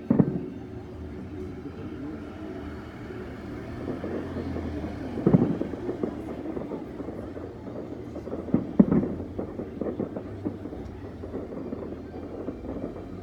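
Fireworks shells bursting at a distance: low booms at the start, about five seconds in, and two close together near nine seconds, with smaller pops in between over a steady low background noise.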